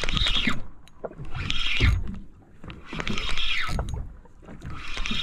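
Spinning fishing reel being cranked to bring in line, its gears whirring in surges about every second and a half with each pull on the handle.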